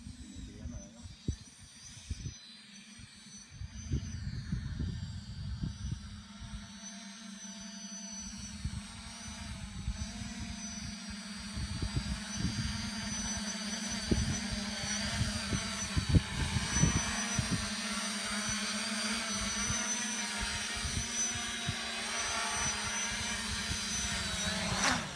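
Electric motors and propellers of a TBS Discovery FPV quadcopter whining, growing louder as it comes closer and shifting in pitch with the throttle, then cutting off abruptly near the end as it touches down. Gusts of wind rumble on the microphone.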